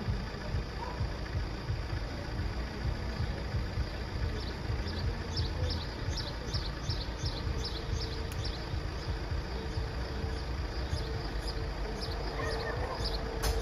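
A low engine rumble runs throughout, with a bird chirping over it in quick repeated notes. A steady hum comes in and grows stronger in the last few seconds.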